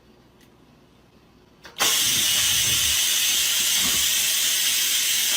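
A steady, loud hiss that starts suddenly about two seconds in, after a quiet stretch with a couple of faint clicks.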